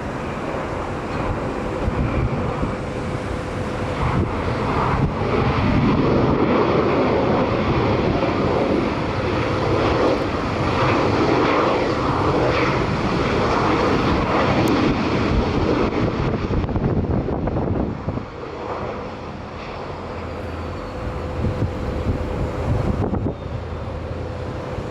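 Jet airliner engines heard from the airfield: a loud, wide rushing noise that builds over the first few seconds, holds for about ten seconds, then drops off sharply about eighteen seconds in.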